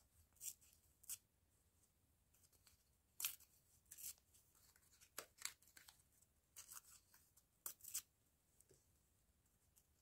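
Faint paper handling: short, crisp rustles and crinkles of paper scraps and stamps, about a dozen of them scattered unevenly, a few a bit louder than the rest.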